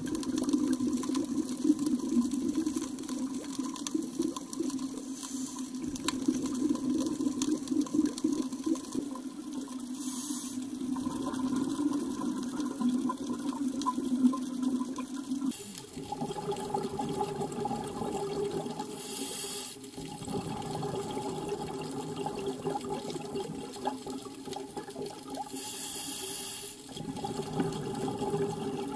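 Underwater ambience: water bubbling and gurgling over a steady low hum that shifts to a higher pitch about halfway through, with two short bursts of hissing bubbles in the second half.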